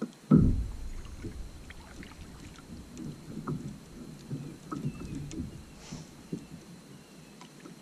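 Kayak paddle dipping and dripping in the water, with wind rumbling on the microphone and a low thump just after the start.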